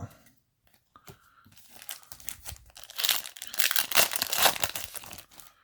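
Foil trading-card booster pack wrapper being torn open and crinkled in the hands, a dense crackle that builds from about a second in and is loudest near the end.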